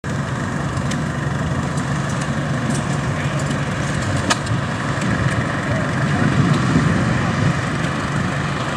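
Farmall tractor's four-cylinder engine running steadily at low speed as the tractor is driven slowly, with a few sharp clicks along the way.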